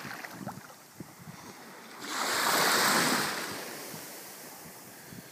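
Small waves lapping on a sandy beach; one wave washes up the shore with a hiss that swells about two seconds in and fades away over the next two seconds.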